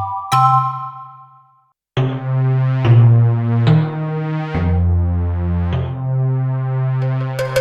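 Yamaha TG-77 FM synthesizer patches playing: a bell-like note dies away, then after a short gap a sustained chord with a low bass line steps through several chord changes. A new plucked, rhythmic patch starts near the end.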